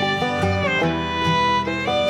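Background music: a fiddle melody over guitar accompaniment, notes changing every few tenths of a second.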